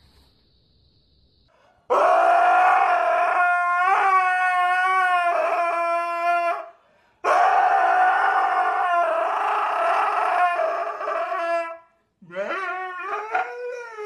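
A husky howling: two long, loud howls of about five seconds each, starting about two seconds in, then a run of shorter howls that rise and fall in pitch near the end.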